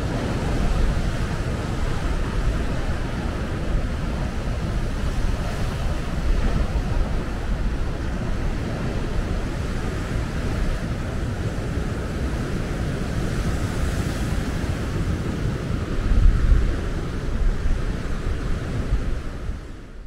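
Waves breaking on a beach with strong wind buffeting the microphone in low rumbling gusts, the strongest gust a little after two-thirds of the way through.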